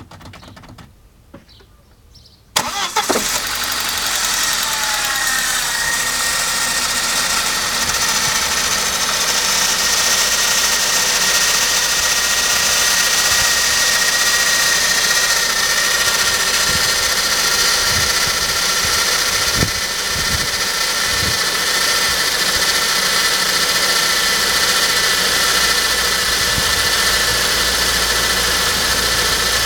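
Saab 9-5 engine starting about two and a half seconds in, then idling with a steady high-pitched whine and hiss above the engine note; the whine rises in pitch just after the start, then holds. This is the strange noise whose cause the owner cannot find.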